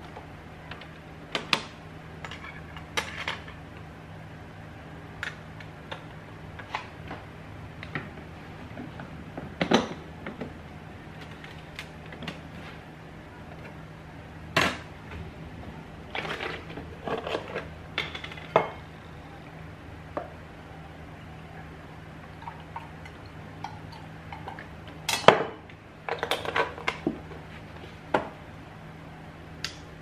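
Kitchenware handled on an espresso machine and counter: a ceramic cup and metal coffee parts set down and fitted, giving scattered knocks and clinks, the loudest late on, over a faint steady low hum.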